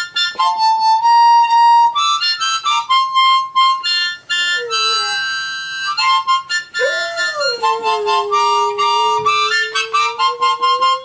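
Harmonica playing a tune in quick notes. About two-thirds of the way in, a boxer dog joins with one long howl that swoops up, then holds low and steady under the harmonica.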